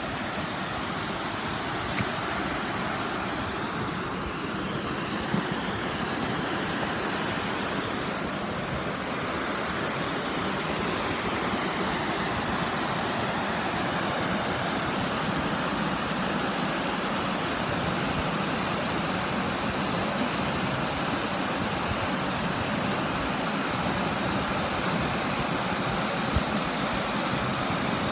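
Steady rushing of a mountain creek pouring over rocks, with a few small knocks.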